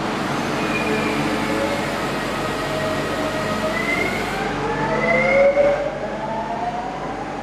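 Renfe Cercanías electric commuter train pulling out and gathering speed: a whine of several tones rising together in pitch over a steady rumble, with a brief louder moment around five and a half seconds in.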